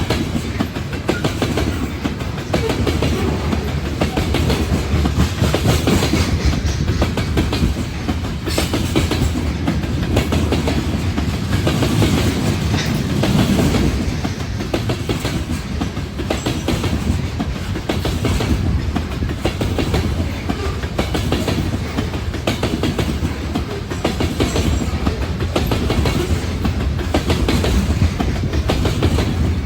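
A long train's cars rolling past close by, a steady rumble with rapid wheel clicks over the rail joints.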